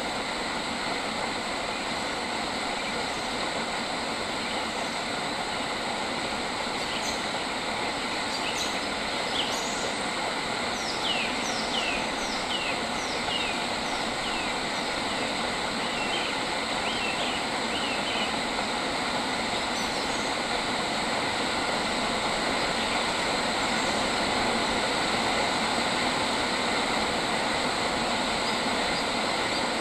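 A bird calls a run of short, down-slurred chirps, about two a second, for some ten seconds starting several seconds in. Behind it is a dense, steady background hiss.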